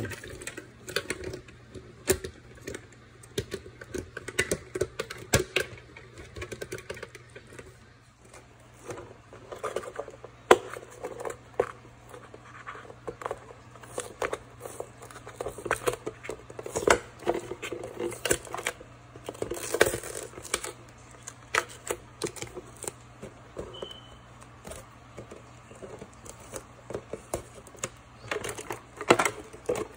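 Irregular clicks, taps and knocks of hands working on a refrigerator's ice-maker parts, pushing a newly fitted part and its wiring back into place, over a steady low hum.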